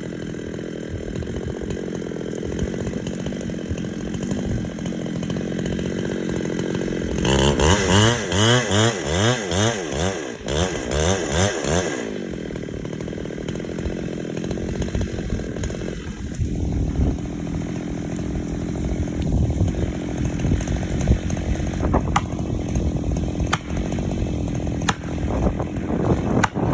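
Chainsaw running while cutting into a Scotch pine, mostly at a steady pitch. About a quarter of the way in it revs up and down several times in quick succession for about five seconds, the loudest part, before settling back to a steady run.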